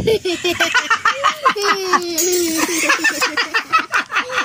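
People laughing in quick bursts, with one voice drawn out in a long wavering sound partway through.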